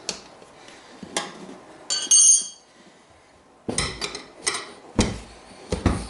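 Metal clinks and knocks from hand-working a motorcycle tire on its wheel rim, in an attempt to break the tire bead. A ringing metallic clang comes about two seconds in, then after a short pause a run of heavier knocks and thumps.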